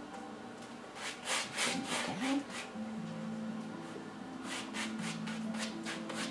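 Wide flat paintbrush loaded with acrylic paint scraping across stretched canvas: a quick run of brush strokes about a second in and another near the end.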